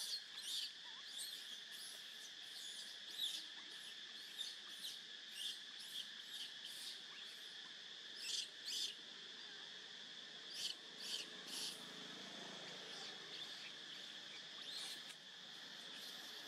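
Infant macaque squeaking in short, high, repeated squeaks at irregular spacing, over a steady high drone of insects.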